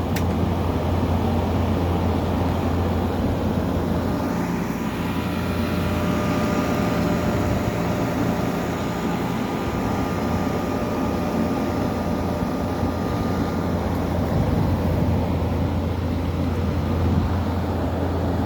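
Running air conditioner: a steady low hum with the rush of its fan.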